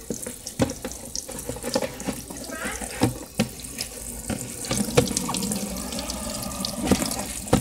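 Kitchen tap running into the sink while a plastic tray is scrubbed with a sponge under the water. Scattered sharp knocks and clatter come from the tray hitting the sink.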